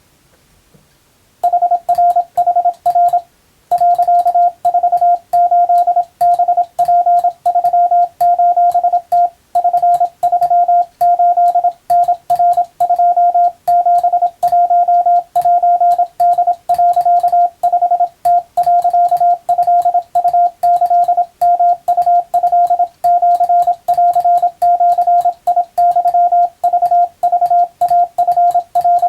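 Japanese wabun Morse code as a single steady beeping tone, keyed on and off in short dots and longer dashes in quick succession. It starts about a second and a half in.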